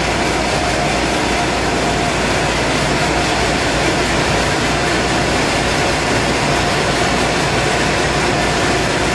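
Steady, loud industrial machinery noise with a faint constant tone and a low hum, unchanging throughout.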